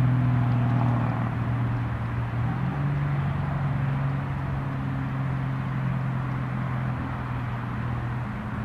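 An engine running steadily in a low drone, its pitch stepping up slightly about two and a half seconds in.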